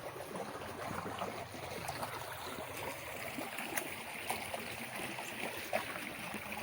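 Shallow water trickling and lapping steadily, with small scattered clicks.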